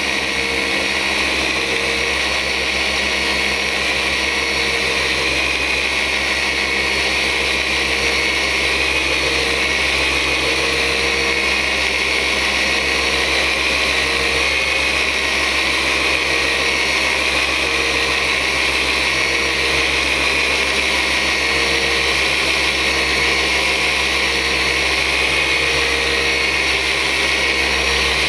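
Flex 3401 VRG forced-rotation dual-action polisher running steadily at speed setting 5, its foam pad working polish into car paint under light pressure.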